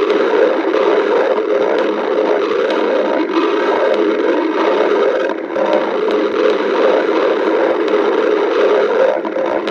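Stomach growling: a loud, continuous low rumbling gurgle, with brief dips about five and a half seconds in and again near the end.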